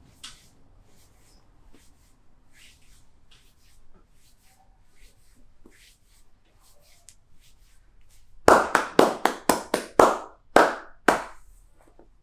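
Percussive massage strokes: hands slapping on the body in a quick run of about ten sharp claps, starting about two-thirds of the way in. Before that, faint soft taps and rustling.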